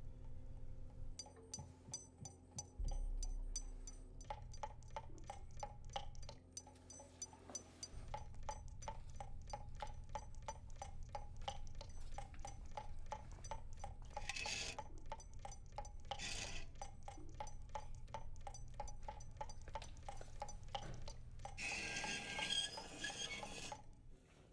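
Tap dripping steadily into a sink, a quick run of evenly spaced clinking drops several times a second, over a low steady hum. Short hisses of water cut in twice near the middle, and a longer spray of water comes near the end.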